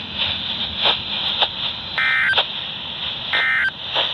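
Emergency Alert System end-of-message signal: two short bursts of warbling digital data tones, a little over a second apart, the SAME code that marks the end of an alert broadcast. They sound over steady radio static hiss with a few clicks.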